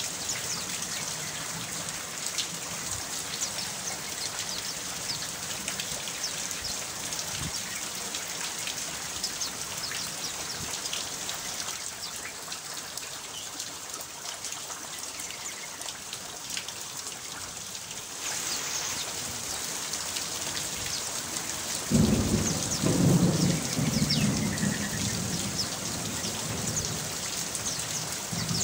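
Steady rain falling, a dense hiss of drops on surfaces. About 22 seconds in, a sudden loud deep rumble breaks in and rolls on for a few seconds before easing back under the rain.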